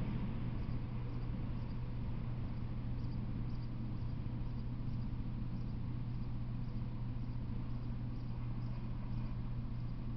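Faint insect chirping, short high chirps repeating about twice a second, over a steady low hum.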